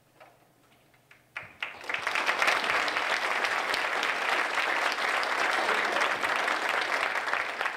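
Audience applauding at the end of a talk, starting about a second and a half in and keeping up steadily.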